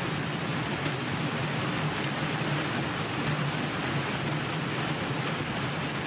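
Heavy rain pouring steadily onto a car's windscreen and bodywork, with a low steady hum underneath.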